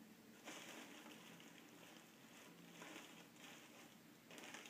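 Very faint, soft rustling of damp tissue paper being laid and pressed down inside a plastic tub, in a few short spells.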